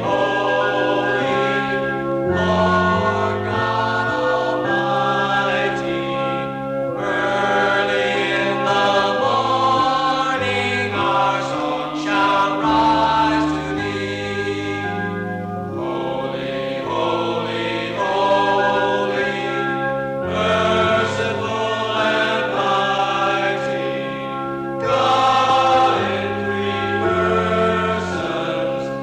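A choir singing a slow hymn-like piece in held chords, phrase after phrase with short breaks between.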